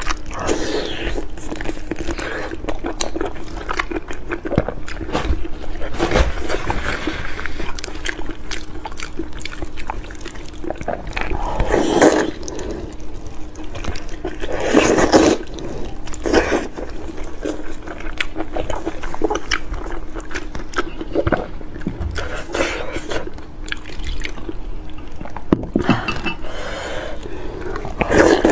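Close-up wet eating sounds from sauce-soaked pork: chewing, lip smacking and sucking at the meat in a steady run of small clicks. Louder wet sucking bursts come a few times. A faint steady hum lies underneath.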